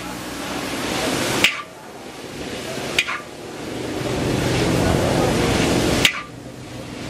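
Char kway teow (flat rice noodles, bean sprouts and prawns) sizzling in a hot wok as a metal spatula stirs and tosses it. Three sharp clanks of the spatula striking the wok come about a second and a half in, at three seconds and near the end, and the sizzle swells again after each.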